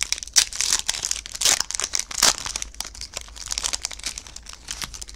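Foil Yu-Gi-Oh! booster pack wrapper crinkling as it is handled and torn open, a dense run of sharp crackles that stops abruptly near the end.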